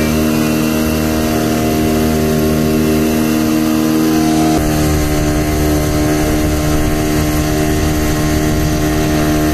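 Motorboat engine running steadily at a constant speed, with a slight step in its pitch about four and a half seconds in.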